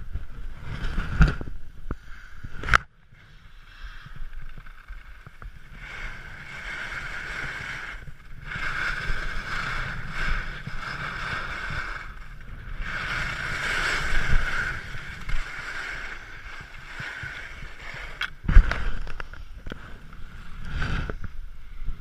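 Skis sliding and carving on packed snow: a steady hissing scrape that swells and fades from turn to turn. Wind rumbles on the microphone, and there are a few sharp knocks, one under three seconds in and more about eighteen seconds in.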